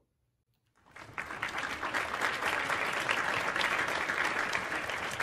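A crowd applauding: dense clapping that starts about a second in, after a brief silence, and holds steady.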